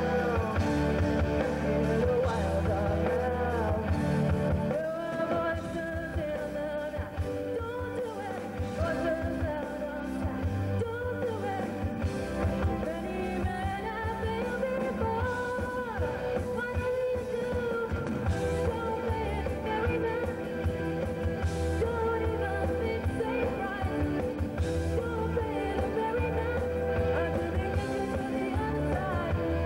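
Amateur rock band playing live: a singer's voice over electric guitars, keyboards, bass notes and a drum kit, continuous through the passage.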